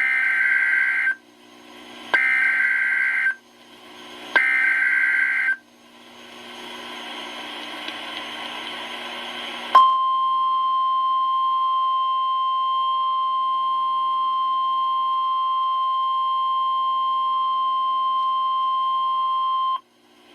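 NOAA Weather Radio Emergency Alert System signal: three short screeching SAME digital header bursts, then a few seconds of radio hiss, then the steady single-pitch 1050 Hz warning alarm tone held for about ten seconds. This sequence marks the start of a new warning broadcast, here a severe thunderstorm warning.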